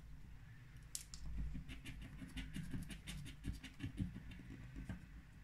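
A scratch card's coating being scraped off with a small hand-held scraper: an irregular run of short scratching strokes.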